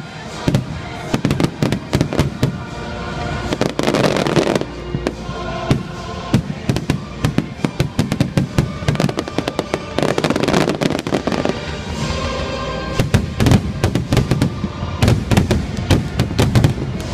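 Fireworks going off in rapid succession, many sharp bangs and crackles one after another, with show music playing alongside.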